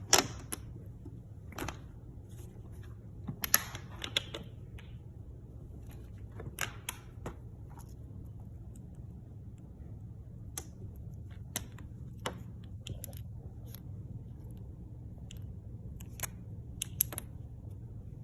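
Irregular, scattered sharp clicks and taps, a dozen or so with small clusters a few seconds in and around the middle, over a low steady hum.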